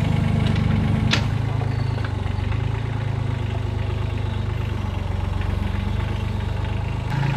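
Engine of a small construction machine running steadily during pond excavation, its note shifting slightly about a second in and again near the end. A single sharp click comes about a second in.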